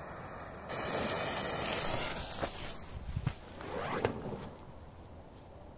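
A firecracker fuse being lit with a jet torch lighter and fizzing as it burns down, a hissing that comes in twice, with a few light clicks in between.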